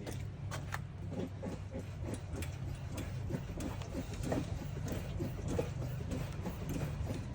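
Mitsubishi Outlander PHEV's chassis creaking and squeaking as the car body is rocked hard by hand, many short squeaks one after another. The owner suspects the creak comes from the wheel area rather than the stabilizer bar bushing, which he has already replaced.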